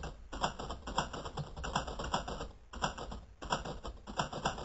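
Typing sound effect: rapid key clicks in quick runs broken by brief pauses.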